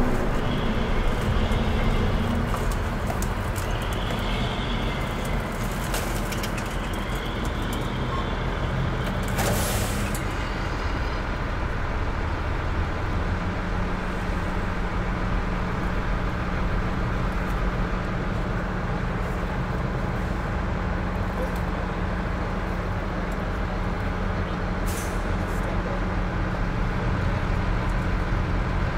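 A heavy vehicle's engine idling steadily, with a short hiss of air about ten seconds in. The engine note settles to a slightly different steady pitch about halfway through.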